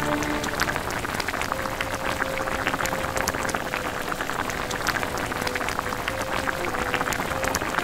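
Thick spicy red braising sauce of pork ribs bubbling in a pan, a dense crackle of small pops.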